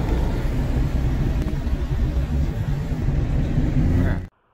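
Low, steady rumble of a car driving on a wet road, heard from inside the cabin, which cuts off suddenly about four seconds in.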